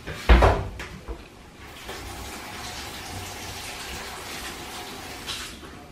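A loud knock, then a kitchen tap running water into the sink steadily for a few seconds before it is turned off.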